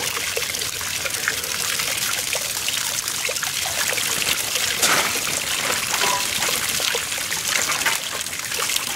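Water from a garden hose splashing against the steel inside of a homemade impact mill's housing and running off the metal as it is rinsed out, a steady hiss with a louder splash about halfway through.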